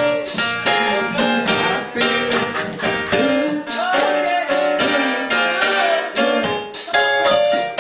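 Gospel song: a woman singing into a microphone over instrumental accompaniment with a steady beat.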